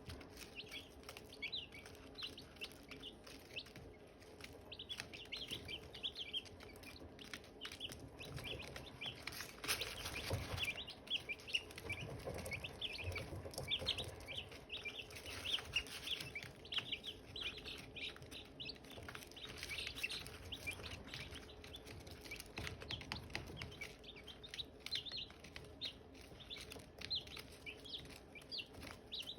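Silkie chicks peeping: a steady stream of short, high chirps from several chicks at once, thinning out briefly a few seconds in.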